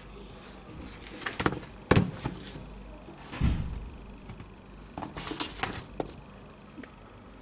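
Air Jordan 4 sneakers being handled on a tabletop: a few light knocks about a second and a half to two seconds in, a dull thump at about three and a half seconds, then brushing and rustling around five to six seconds.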